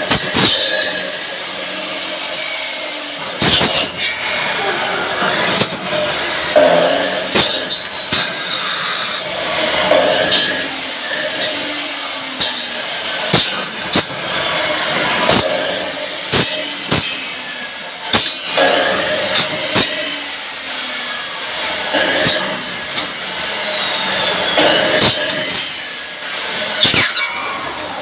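Electric bone-cutting saw cutting through bones: a high whine that rises and falls with each cut, repeated several times, with scattered sharp knocks.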